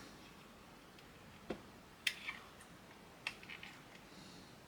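A few faint clicks and taps of small plastic model-kit parts being handled and pressed together during a dry test fit.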